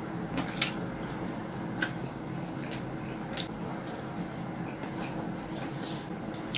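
Close-miked eating sounds: chewing roast chicken, with scattered wet mouth clicks and smacks, about seven in all, over a steady low hum.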